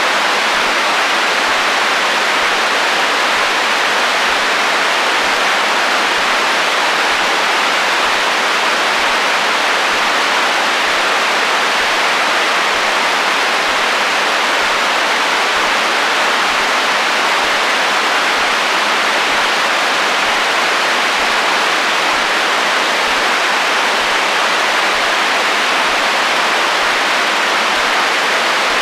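Radio interference static on the HF band: a steady, even hiss with little bass.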